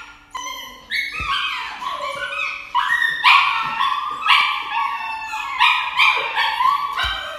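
A dog crying out at an injection in the scruff of its neck: a string of high, drawn-out yelps and whines, about one or two a second, each rising and then falling in pitch.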